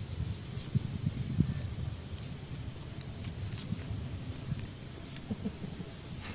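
Outdoor ambience with a low rumble and scattered small clicks and taps as food and a knife are handled over a bowl. A bird gives a short falling chirp twice, near the start and about three and a half seconds in.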